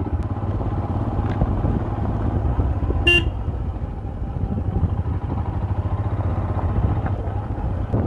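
Motorcycle engine running steadily at low speed on a gravel lane, with one short horn beep about three seconds in.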